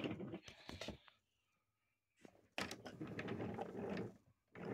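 Wooden toy trains clattering and clicking on wooden track as they are pushed by hand, with small knocks of wooden wagons against each other. There are a few clicks at first, a pause, then about a second and a half of clattering from about two and a half seconds in.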